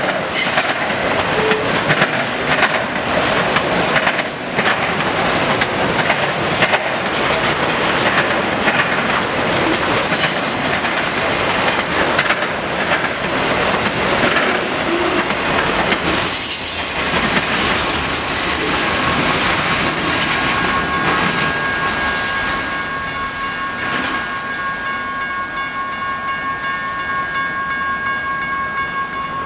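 Loaded autorack freight cars rolling past, wheels clattering over rail joints and the diamond crossing with occasional high wheel squeal. After the last car passes the rumble falls away and a railroad crossing bell is left ringing steadily.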